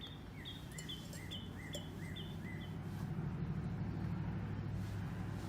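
A bird calling a quick series of short, evenly repeated chirps, about two a second, that stops about three seconds in. Under it runs a low steady hum that grows louder.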